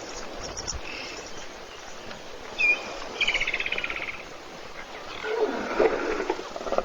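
Outdoor waterhole sounds: a bird gives a short high chirp, then a rapid trill about three seconds in. Near the end comes a lower animal call that slides up and down in pitch.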